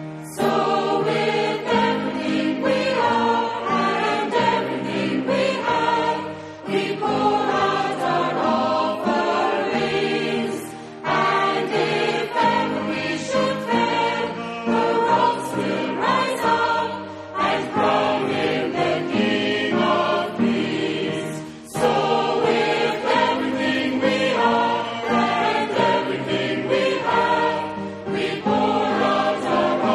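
A choir singing a hymn in phrases of a few seconds, with short breaks between them.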